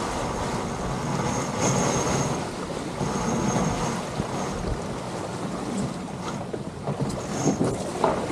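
Wind buffeting the microphone over the rush of water along a sailing catamaran's hulls, steady throughout. A thin high whistle comes and goes twice in the first half and once more near the end.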